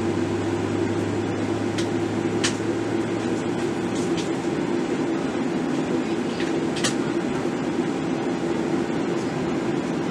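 Steady cabin noise inside a Boeing 737-700 on the ground before takeoff: a constant air-conditioning hum with no engine run-up. A lower hum fades out about three seconds in, and a few faint clicks come through.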